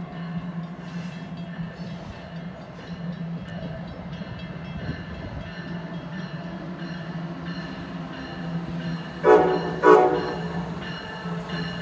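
Amtrak ACS-64 electric locomotive approaching with a steady low hum, then sounding two short, loud horn blasts about three-quarters of the way in.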